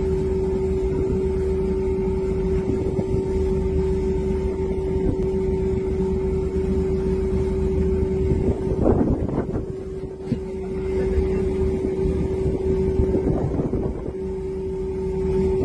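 Steady engine drone: a constant mid-pitched hum over a low rumble, with wind noise on the microphone.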